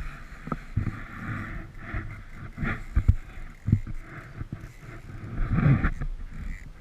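Wind and water noise aboard a small fishing boat at sea, with a few dull knocks and thumps on the boat.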